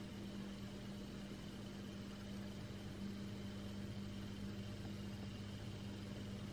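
Faint room tone: a steady low electrical hum with light hiss and a faint high whine, unchanging throughout.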